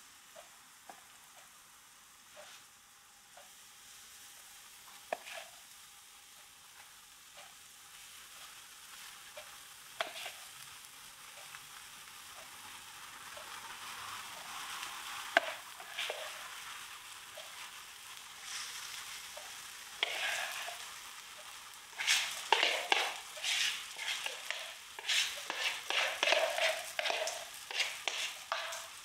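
Crumpet batter frying in hot oil in a frying pan: a sizzle that builds as more spoonfuls go in, turning to loud crackling and spitting in the last several seconds. A few sharp clicks stand out along the way.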